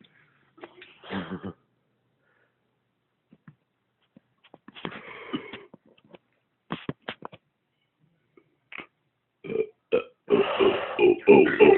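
A man belching: short burps about one second and five seconds in, then a long, loud belch that starts near the end. The belches are forced, bringing up the gas from a carbonated soda.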